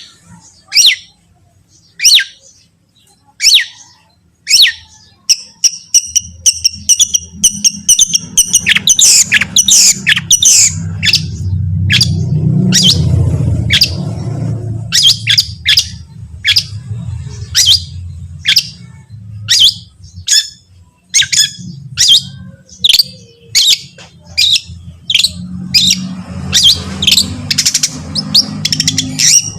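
Long-tailed shrike (cendet) calling loudly in sharp, harsh notes, first about one a second, then in fast runs with a warbled passage mixed in. A low hum lies underneath from about six seconds in.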